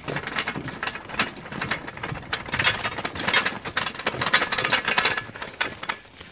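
A loaded metal-framed hand trolley being wheeled over a rough path: a dense, irregular clatter of the wheels and frame, with the load of old spanners rattling and clanking together. It eases off near the end.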